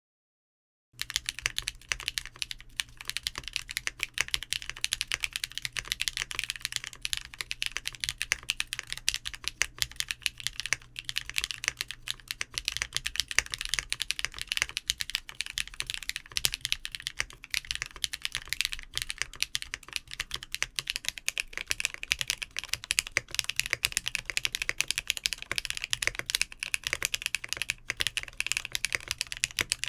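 Mechanical keyboard with tactile switches being typed on continuously in a fast, steady stream of key clacks, starting about a second in.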